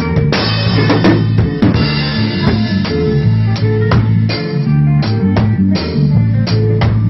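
A rock band playing live: a drum kit keeps a steady kick-and-snare beat under an electric bass line, with a cymbal crash ringing for about a second and a half near the start.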